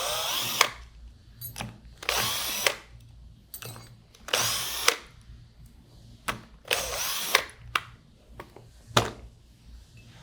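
Cordless power driver spinning out the four bolts that hold the pump's seal seat: four short whirring bursts about two seconds apart. Small clicks and knocks come between the bursts.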